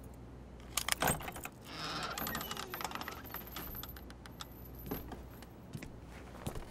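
Light metallic clicks and rattling of a door's handle and latch as the door is worked open, with a cluster of sharp clicks about a second in and scattered clicks after.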